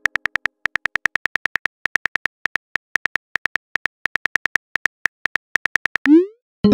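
Simulated smartphone keyboard clicks, a rapid, uneven run of short ticks, one per typed letter with brief pauses. Near the end comes a short rising whoosh, the message-sent sound, which is the loudest moment.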